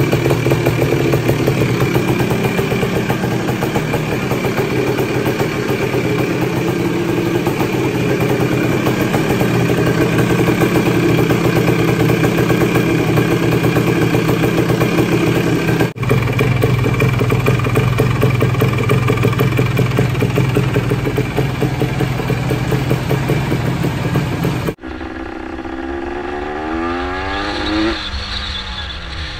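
Honda ATC 250R's two-stroke single-cylinder engine running steadily at idle. About 25 seconds in it cuts to the engine under way, quieter, its pitch rising as it accelerates.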